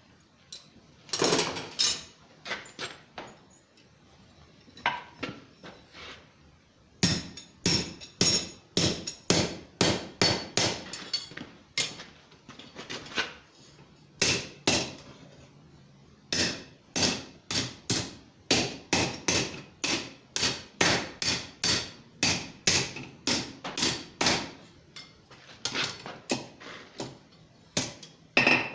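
Hand hammer striking hot steel on an anvil, rapid blows of about two to three a second with brief pauses, each strike ringing. The blows set the interlaced hairpin, crossbar and ring of a forged hairpin cross together.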